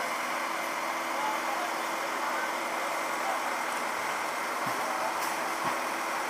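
Idling engines of emergency vehicles stopped at a road accident, a steady running noise that does not change.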